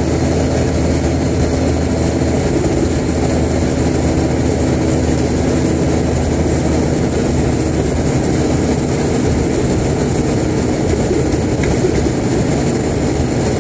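2001 Kenworth's mechanical 575 Caterpillar single-turbo diesel engine running steadily, with a constant high-pitched turbo whistle over the engine note.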